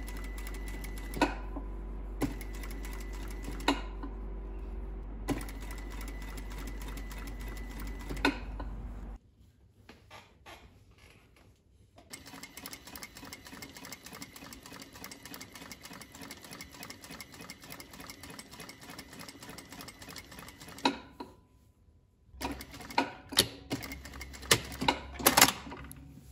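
Juki industrial sewing machine stitching fabric in runs: a first run over a steady low motor hum, a short pause, then a longer run. A few sharp knocks come near the end.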